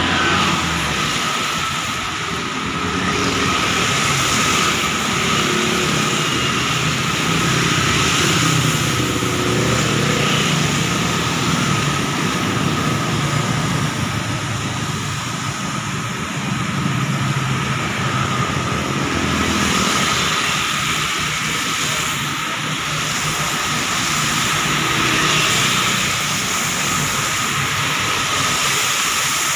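Traffic passing close by on a wet highway: tyres hissing on wet asphalt, with bus engines and motorcycles going by one after another, their engine notes rising and falling as each one passes.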